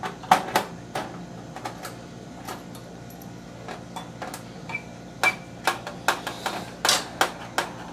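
Irregular sharp clicks and light metallic knocks, about a dozen over several seconds, from metal computer-case parts and screws being handled.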